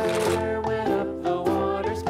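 Background music: a bright, upbeat children's tune with a quick melody over a steady beat.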